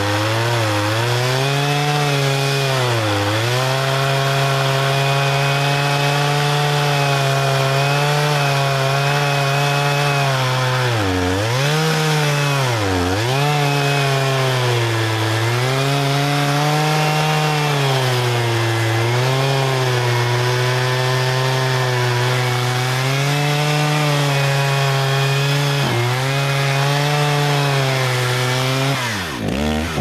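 Two-stroke chainsaw running at high revs while cutting into a tree trunk. Its pitch dips briefly several times as the chain loads up in the wood, and near the end the engine falls off and revs back up.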